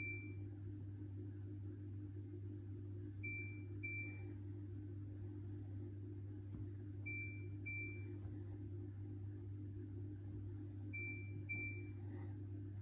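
Hoover H-Wash 600 washing machine's control panel beeping: pairs of short, high electronic beeps repeated about every four seconds, three pairs in all, over a steady low electrical hum.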